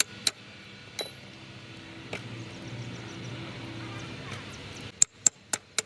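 Sharp metal clinks and strikes from tools on metal parts during gearbox repair work. A few scattered strikes come early, then a quick run of hammer-like blows about three a second near the end, over a low steady hum.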